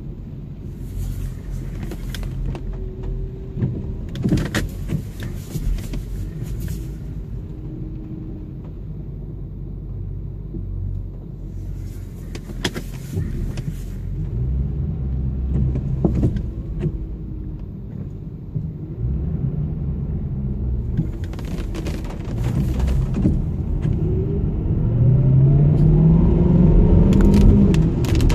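Car engine heard from inside the cabin, running with a low rumble, its pitch climbing near the end as the car accelerates away. Brief bursts of hiss come every several seconds.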